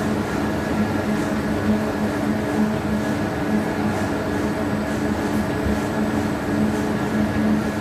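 Industrial spiral dough mixer running, a steady mechanical hum with several constant tones over it.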